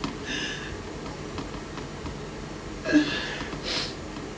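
A person in severe pain whimpering: a short high-pitched cry just after the start and a louder one about three seconds in, followed by a sharp breath.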